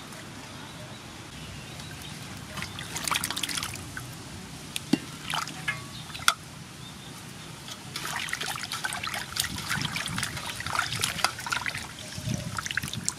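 Water sloshing, splashing and dripping in an aluminium basin as whole cuttlefish are washed and squeezed by hand, in irregular bursts, with a couple of sharp clicks midway.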